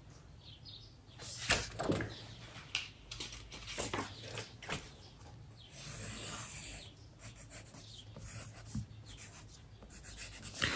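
Drawing on paper by hand: short scratchy strokes and light taps, then one longer continuous scratch about six seconds in, as a circle and letters are drawn.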